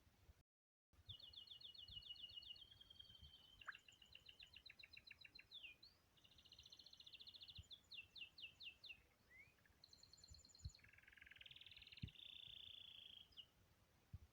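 Faint songbirds singing: a string of rapid, ticking trills and short buzzy phrases follow one another for most of the time, with a few soft low thumps underneath.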